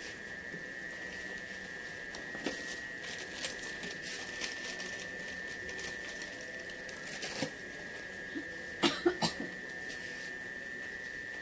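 Scattered small clicks and taps from handling a network cable and hand tools, over a steady thin high whine. About nine seconds in there is a short cluster of three or four sharp, louder sounds, most likely a cough.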